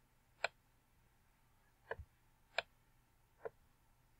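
Computer mouse clicking: about five short, separate clicks spread unevenly over four seconds, two of them close together about two seconds in, as a shape is selected and dragged to resize.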